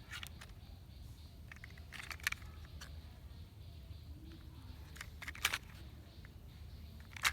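Plastic toy vehicles being handled, giving a few sharp clicks and clacks over a low steady hum. The clicks come about two seconds in, again around five and a half seconds, and near the end.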